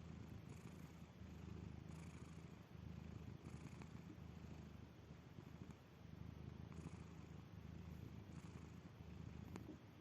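Sleeping domestic cat snoring with a low, purr-like rumble. It is faint and swells and eases with slow breaths about every three seconds.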